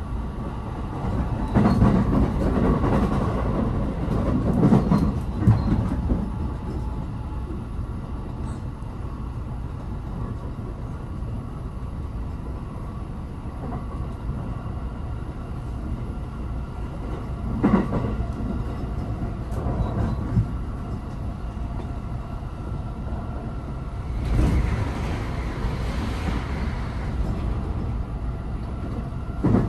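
Running noise heard inside a moving electric train: a steady low rumble with wheels clattering over the rails. The clatter is heavier for a few seconds near the start, again briefly around eighteen and twenty seconds in, and around twenty-five seconds in, with one sharp knock near the end.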